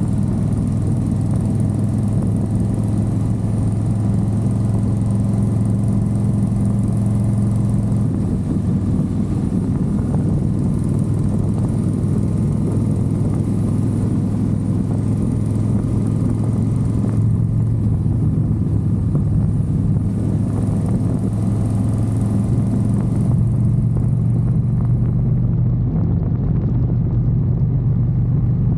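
Motorcycle being ridden on the open road: engine running at a fairly steady pitch under a constant rush of wind noise.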